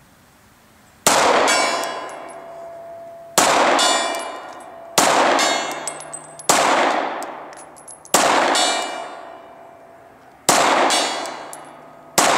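Seven 9mm pistol shots from a Glock 19 Gen 4, a second and a half to two and a half seconds apart. Each shot is followed by the ring of a struck steel gong, which fades away over a second or two.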